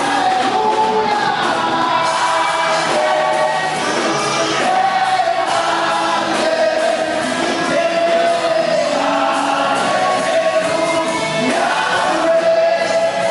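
A gospel worship song sung live, with voices holding long notes that slide from one pitch to the next.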